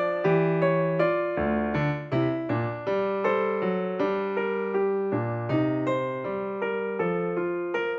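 Background music: a piano or electric piano playing a steady run of notes, about two a second.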